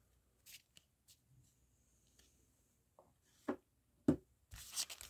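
Quiet handling of trading cards with a few faint ticks, then two sharp knocks about three and a half and four seconds in. Near the end comes the crinkle of a sealed plastic card-pack wrapper being picked up.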